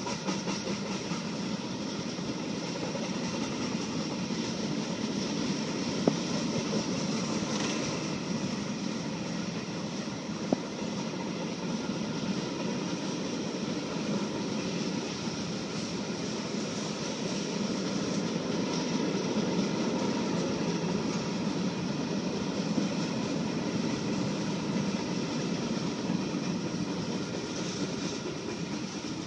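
Freight train cars rolling steadily past: a continuous rumble and rattle of steel wheels on rail, with three short sharp clacks.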